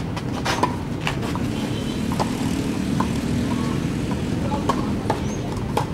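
Tennis balls struck by rackets and bouncing on a clay court during a rally: a string of sharp pops, roughly one or two a second, over a steady low rumble.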